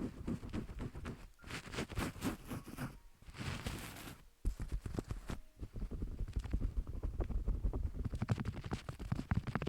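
Hands massaging a microphone ear with a milky liquid, giving a dense run of wet, squishing crackles and low rubbing thuds, with a brief brighter hissing rub about three and a half seconds in.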